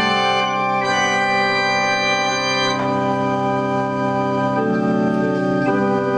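Small cabinet pipe organ playing sustained full chords, starting suddenly and moving to a new chord every second or two.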